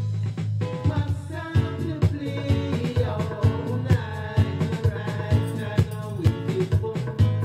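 A dub reggae record playing from a 7-inch vinyl single on a turntable: a steady deep bass line under a regular drum beat.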